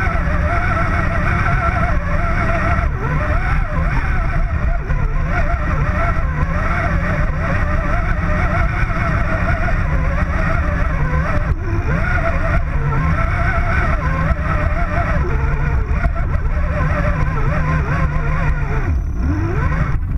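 Electric motor and gear train of an Axial R/C scale rock crawler whining as it crawls, the pitch rising and falling with the throttle, over a heavy low rumble on the truck-mounted camera's microphone.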